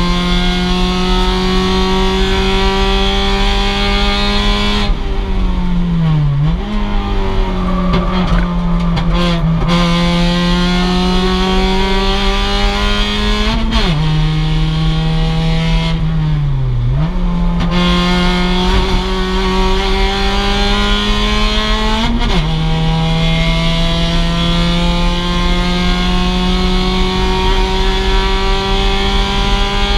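The 2006 Mazda MX-5's stock four-cylinder engine is at racing speed, its note climbing slowly under throttle. Twice the pitch falls away as it slows for a corner, with quick jumps up from downshifts, then it pulls hard again.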